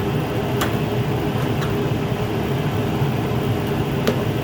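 A steady mechanical drone, with a few light, sharp clicks (about three) from a small tool working a plastic windshield washer nozzle.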